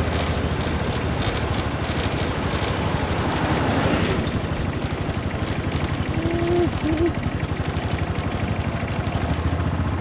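Yamaha SRX400's single-cylinder four-stroke engine running with an even pulsing beat, swelling briefly around four seconds in, with a short squeal a little past the middle. The owner suspects the bike has a failed transmission and a slipping clutch.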